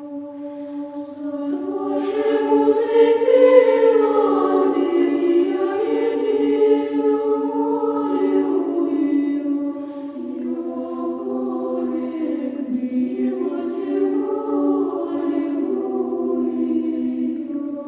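A choir singing a slow chant, with voices holding a steady drone note beneath a moving melody line. It swells about two seconds in.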